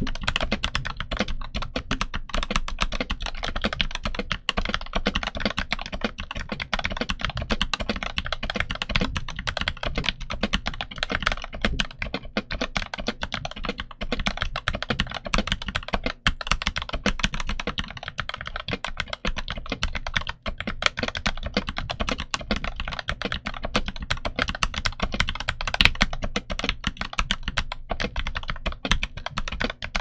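Machenike KT68 Pro mechanical keyboard with Gateron North Pole switches and translucent ABS OEM-profile keycaps being typed on continuously: a fast, dense stream of key clacks.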